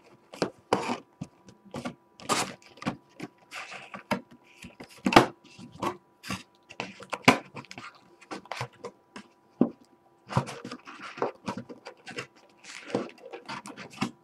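Cardboard Prizm trading-card box being opened and handled: repeated light knocks and taps of cardboard on a wooden table, with short bursts of rustling as the lid is lifted and the packs are moved.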